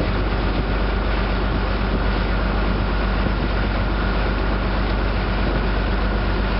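Steady drone of a motor vessel's engine heard from on board while under way, a constant low hum with a faint steady whine above it and rushing water and wind noise.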